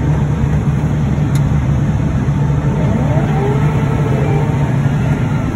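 Cotton picker running steadily while harvesting, a constant low drone of engine and picking units heard from inside the cab.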